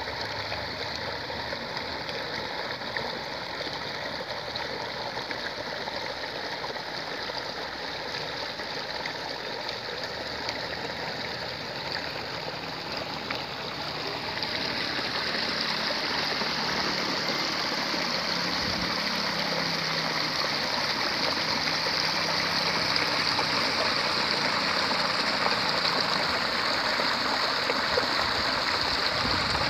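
Shallow flowing water babbling steadily, growing louder about halfway through.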